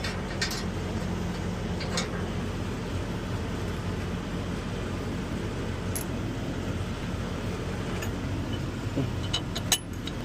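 Steady low mechanical hum, with a few short metallic clicks of hand tools on bolts: one about half a second in, one near two seconds, one near six seconds and a quick cluster near the end.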